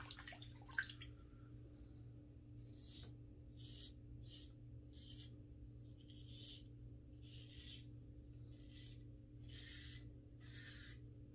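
Double-edge safety razor with a Gillette Silver Blue blade scraping through lathered two-day stubble on the neck. About ten short, faint strokes at roughly one a second, starting a couple of seconds in.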